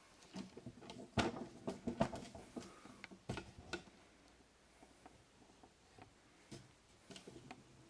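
Light clicks and knocks of plastic breast pump parts and a milk bottle being handled on a stone countertop. There are several sharp taps in the first four seconds and fainter ones after.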